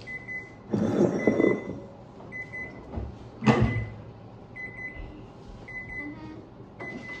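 A high electronic beep repeating in short pulsed runs about once a second, with a burst of clattering about a second in and a sharp knock about three and a half seconds in.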